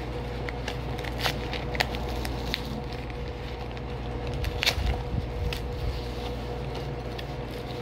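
Paper packaging of a cornstarch brick crinkling and tearing as it is peeled away by hand: a run of small irregular crackles, the loudest a little past halfway, over a steady low hum.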